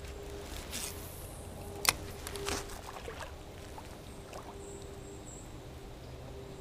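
Quiet streamside background of faint water and air noise, broken by one sharp click about two seconds in and a few lighter clicks just after, from handling a spinning rod and reel between casts.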